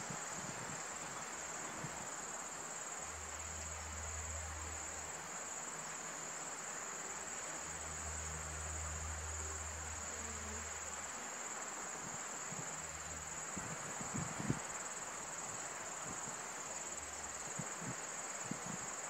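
Steady, high-pitched chorus of insects, a continuous even whirr, with a low rumble coming and going a few times underneath.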